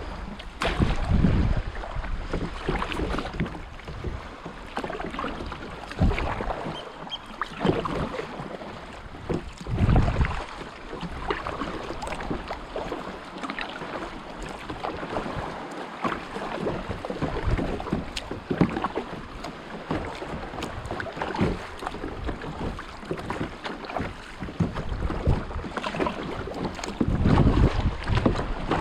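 Sea kayak paddled over gentle waves: irregular splashing and lapping of seawater around the paddle and hull, with a few gusts of wind on the microphone.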